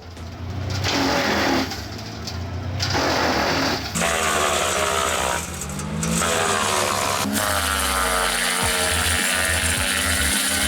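Large wood chipper machinery running, its engine tone rising and falling, in a few short clips cut together.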